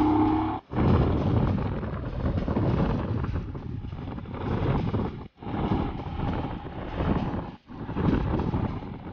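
Royal Enfield Himalayan's 411 cc single-cylinder engine running under way, with wind rushing over the camera microphone. A short horn note sounds at the very start, and the sound cuts out abruptly three times where clips are joined.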